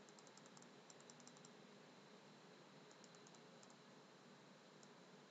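Faint bursts of quick clicking at a computer over a low steady hiss: two runs of clicks at the start and about a second in, another around three seconds in, and a single click near the end.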